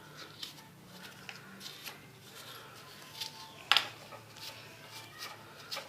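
Irregular scratchy scraping and scrubbing strokes on a dirty motorcycle engine being cleaned, with one sharper, louder scrape or knock just under four seconds in.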